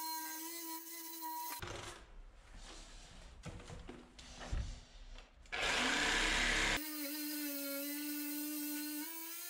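Reciprocating saw cutting through a radiator pipe: the motor runs with a steady whine, then the blade rasps rough and uneven through the pipe, loudest between about five and a half and seven seconds in, before the steady whine returns.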